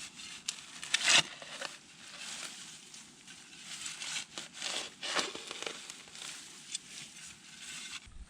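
A shovel scraping and cutting into heavy, waterlogged clay soil, a run of irregular crunching scrapes with the loudest about a second in.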